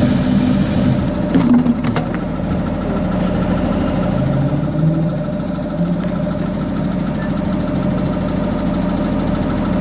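Aston Martin One-77's 7.3-litre V12 idling steadily, with a few sharp clicks about a second and a half in.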